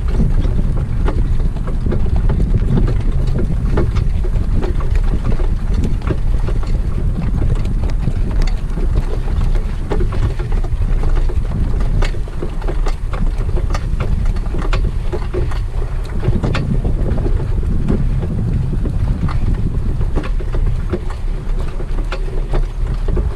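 Heavy wind buffeting the microphone of a harness-racing driver moving at speed behind the horse, with frequent irregular clicks and knocks through it.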